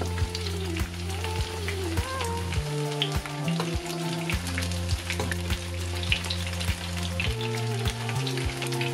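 Zucchini and rice patties sizzling and crackling in hot oil in a frying pan, with background music under it.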